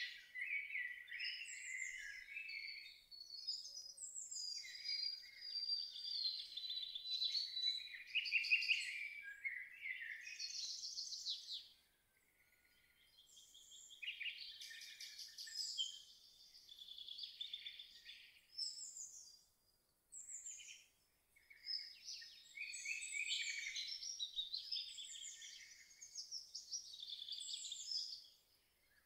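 Several songbirds singing, with overlapping trills and chirps and short pauses between phrases. There are brief lulls about twelve and twenty seconds in.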